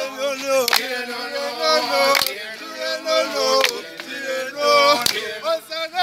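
A group of voices singing a repeated chant together in unison, a marching song sung while stepping. A sharp percussive hit cuts through about every second and a half, in time with the song.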